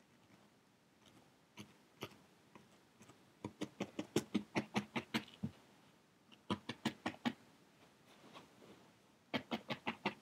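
Felting needle stabbing repeatedly through wool into a foam felting block, in three runs of quick taps about six a second, with pauses between.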